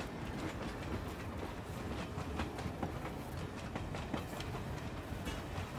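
Excursion train rolling past at moderate level, with a steady low rumble and irregular clicking and clattering of steel wheels on the rails.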